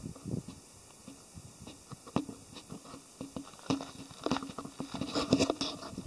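Footsteps crunching and scraping on loose volcanic rock and cinder, irregular and growing denser and louder near the end.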